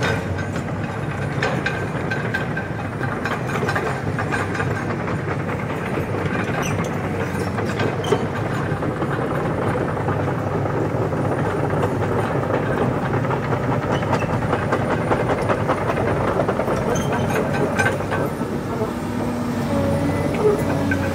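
Hydraulic excavator working fill soil: its diesel engine running steadily, with frequent short metallic clanks and knocks from the machine.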